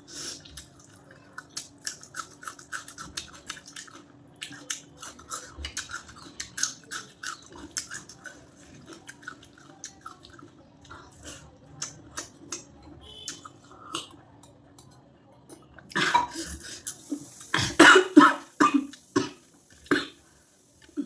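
A person eating close to the microphone: a steady run of small chewing and mouth clicks, then several loud coughs in the last few seconds.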